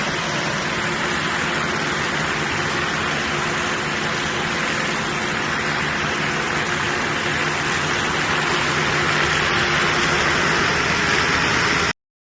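Tractor engine and tractor-driven straw picking, crushing and baling machine running steadily, a constant engine hum under a wide mechanical hiss. It cuts off abruptly near the end.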